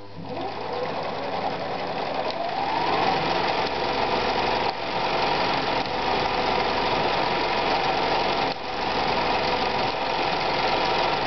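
Husqvarna Practica 4010 sewing machine sewing under foot-pedal control, its motor speeding up over the first few seconds and then running steadily, with two brief slow-downs.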